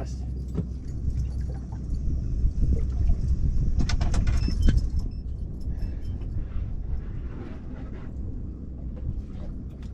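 Steady low hum of a boat's engine running at idle, with a short run of sharp clicks and clatter from handling about four seconds in.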